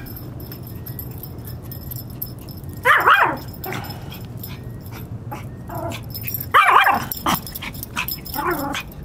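Small Yorkshire terrier barking in short bursts: about three seconds in, again around seven seconds, and once more, weaker, near the end.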